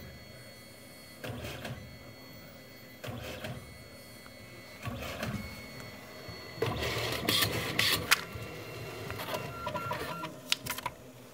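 Photo booth's built-in printer printing a photo strip, running in several separate passes with short pauses between them, the loudest pass about seven to eight seconds in. A few sharp clicks come near the end as the finished print comes out of the slot.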